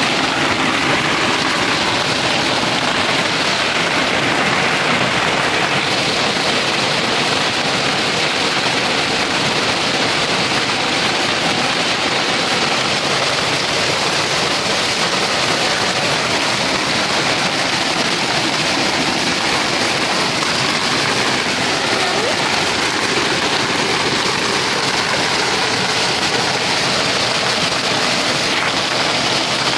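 Heavy hail pelting down onto the street, a wall and hedges: a loud, steady, dense rush of hailstone impacts that never lets up.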